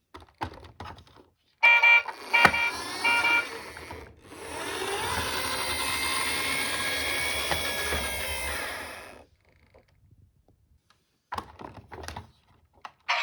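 Toy emergency vehicle's electronic sound effects: three or four short horn beeps, then about five seconds of a steady, noisy electronic sound. Light plastic clicks come at the start and near the end.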